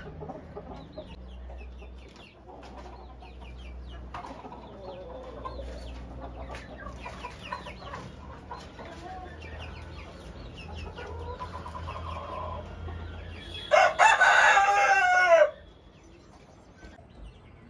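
Chickens clucking and calling in their coops, then a rooster crows loudly for nearly two seconds near the end.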